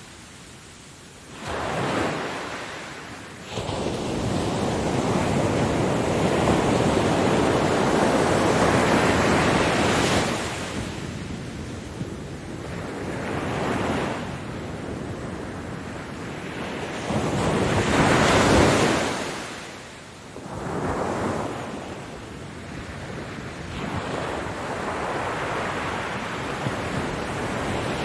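Ocean surf: waves breaking one after another, each swelling into a rushing wash and fading. A long surge builds a few seconds in, and the loudest crash comes about two-thirds of the way through.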